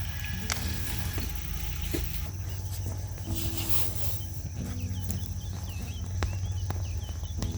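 Small birds giving a run of short, high, rapidly repeated chirps, starting a couple of seconds in, over a steady low hum and soft sustained low tones.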